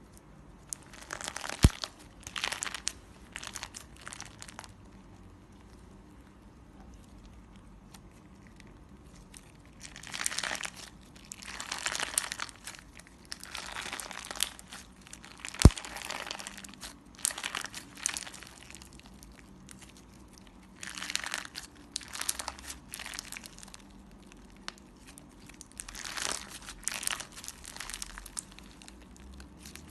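Clear slime being squeezed and folded by hand, giving spells of crinkly, crackling pops with short pauses between. There are two sharp clicks, about two seconds in and about halfway through.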